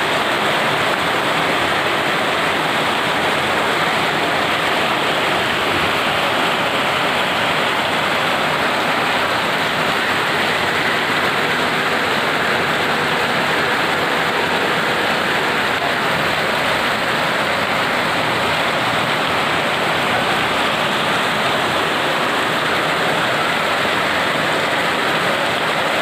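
Rain pouring down steadily, a dense, even hiss that never lets up.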